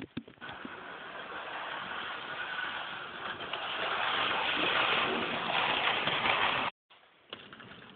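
00 gauge model train running close by on its track: a steady rattling rush of wheels on rail and the small motor, growing louder, after a few clicks at the start. It cuts off abruptly near the end.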